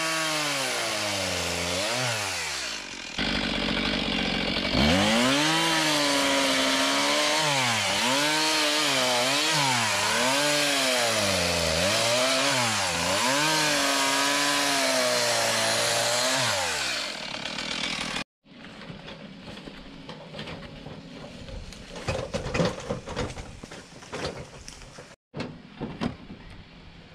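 Two-stroke Stihl chainsaw cutting through ash logs, its engine note dipping and climbing again about once a second as the chain bites and clears, then winding down. After a sudden cut, a scatter of wooden knocks as cut ash logs are stacked into a tractor's metal link box.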